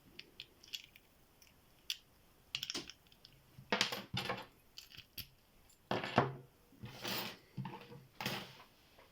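Scattered metallic clicks and clatters from a small padlock and steel lock picks being handled.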